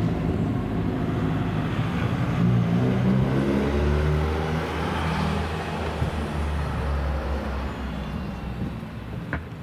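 Car engine running close by, a steady low hum that drops in pitch a few seconds in and then slowly fades. A sharp click near the end.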